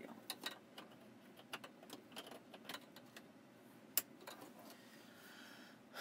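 Light plastic clicks and rattles of wiring-harness connectors being handled and plugged into the radio module, the sharpest click about four seconds in.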